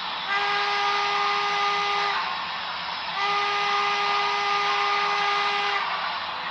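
Steam whistle from a model steam locomotive's sound system, blown in two long, steady blasts over a continuous hiss. Two long blasts are the standard signal that the train is about to move forward.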